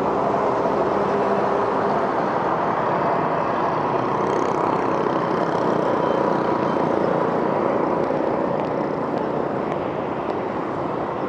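Steady urban road traffic: a continuous wash of passing vehicle engines, easing off slightly near the end.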